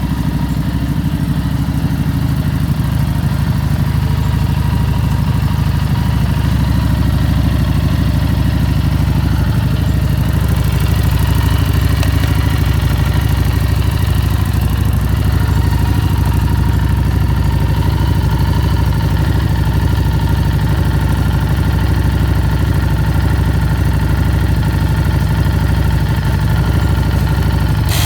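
Harley-Davidson Street 750 V-twin engine idling steadily, kept running to power an electric tyre inflator from the battery.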